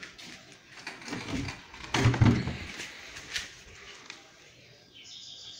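A few knocks and clicks, the loudest a dull thump about two seconds in, with birds chirping near the end.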